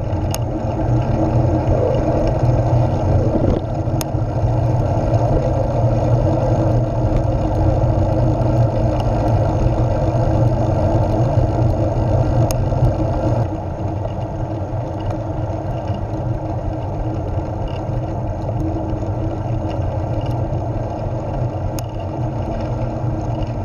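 Steady wind rush and rolling road rumble on the microphone of a camera riding on a moving recumbent trike, with no engine; it eases somewhat about halfway through.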